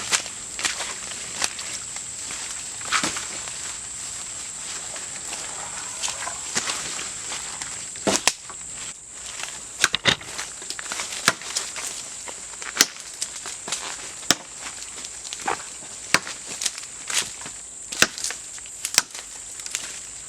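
Irregular sharp knocks of wood being chopped, coming more often and louder from about eight seconds in, over a steady high-pitched insect drone.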